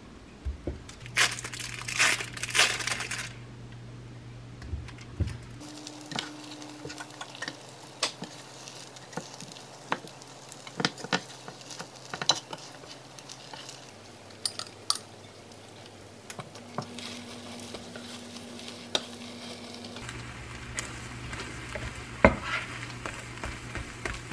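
Egg frying with a light sizzle in a rectangular omelette pan while a spatula taps and scrapes against the pan as the rolled omelette is turned and shaped, in short sharp clicks. A burst of crinkling comes about a second in.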